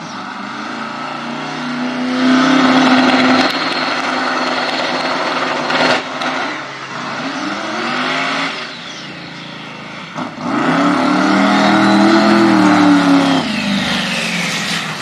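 2500 hp twin-turbo V8 drag car revving hard in several bursts, then launching and accelerating with rising pitch. The engine sound drops off near the end as the car pulls away.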